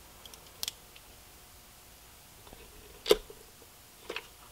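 A screwdriver and screws clicking and tapping against a GMC Denali headlight housing as the housing is screwed back together. There are a few scattered sharp clicks, the loudest about three seconds in.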